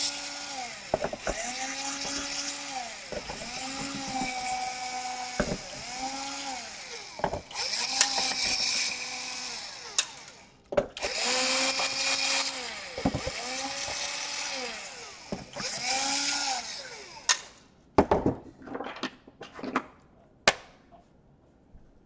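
Cordless drill-driver backing out the screws of a laptop's plastic bottom cover in about eight short runs, its motor whirring up in pitch as each run starts and winding down as it stops. Near the end come a few clicks and knocks.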